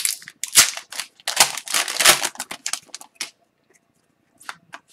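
Foil wrapper of an Upper Deck Extended Series retail hockey card pack being torn open and crinkled, a dense run of crackling for about three seconds. Near the end come a few light clicks as the cards are handled.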